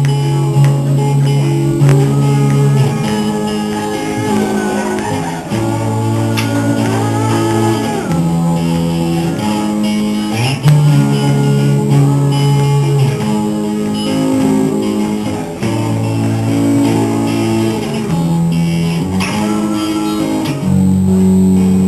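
A song with guitar chords and a male voice singing over them; the chords change every second or two.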